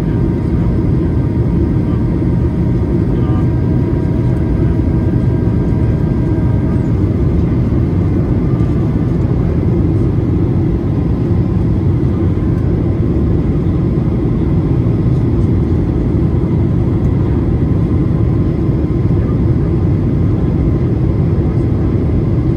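Steady cabin drone inside a Boeing 737-800 on approach: CFM56-7B engine and airflow noise, heaviest in the low end, with faint whining tones that fade out about seven seconds in.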